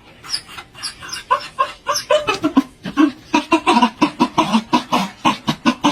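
Chicken clucking: a few short, high chirps about half a second apart at first, then a quick run of short clucks, about four to five a second.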